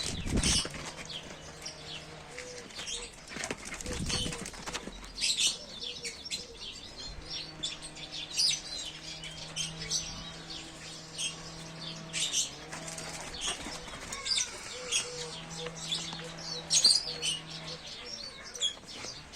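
Small birds chirping over and over in short, sharp notes, with some rustling and flapping, and a low hum that comes and goes.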